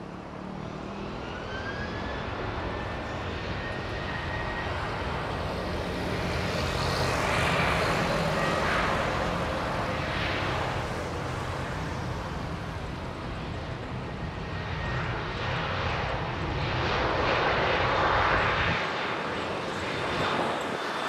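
Boeing 737-900ER's CFM56 jet engines running on a landing, with a whine that rises in pitch early on. The noise swells twice, about a third of the way in and again near the end, and the deep rumble drops away shortly before the end.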